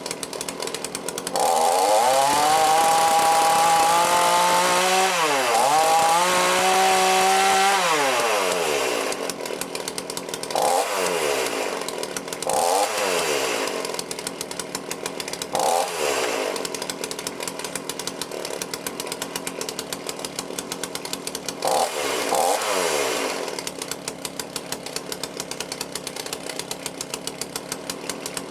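Two-stroke chainsaw engine with a freshly rebuilt Walbro carburettor idling, revved up and held twice for a few seconds near the start, then given several short throttle blips before dropping back to a steady idle. It is being warmed up ahead of fine adjustment of the carburettor's mixture screws.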